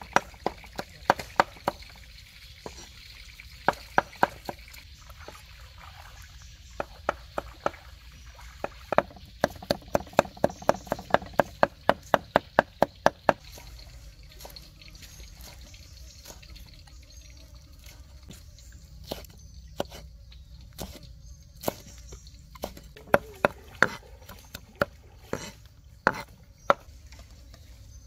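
Knife chopping on a cutting board: scattered sharp chops, with a steady run of about three chops a second near the middle.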